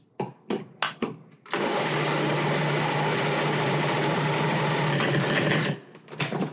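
A few short clicks and knocks, then an electric kitchen blending appliance runs steadily for about four seconds with a constant low hum, mixing thick black bean brownie batter after a splash of added water, and stops.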